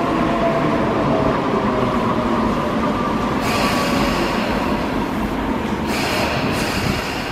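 Electric commuter train at a station platform: a steady rumble with faint whining tones, joined by a high hiss about halfway through that breaks off briefly near the end.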